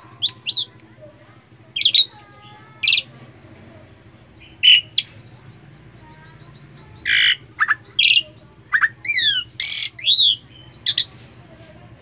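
Javan pied starling (jalak suren) chattering: short harsh squawks and clear whistled notes, a few scattered calls at first, then a quick run of calls with several falling whistles from about seven to ten seconds in.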